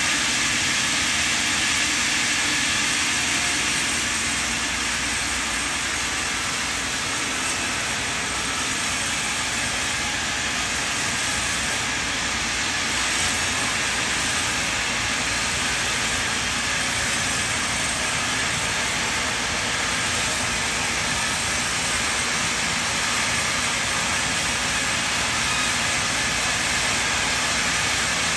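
Large vertical band saw ripping a thick timber slab lengthwise as it is fed through by hand: a loud, steady, hissing cutting noise that holds level throughout.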